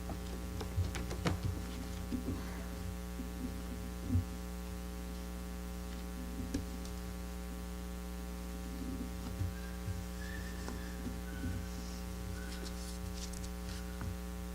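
Steady electrical mains hum with a ladder of overtones, with scattered soft knocks and faint clicks from handling at the pulpit.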